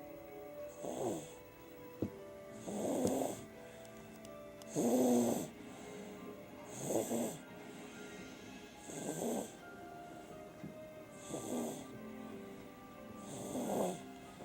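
A sleeping baby snoring, one snore about every two seconds, with soft background music underneath.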